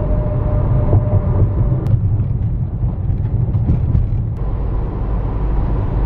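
Steady low rumble of a running car heard from inside the cabin: engine and road noise.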